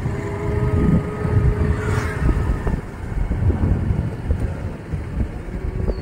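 Outdoor street noise: wind rumbling on the microphone over passing vehicle traffic.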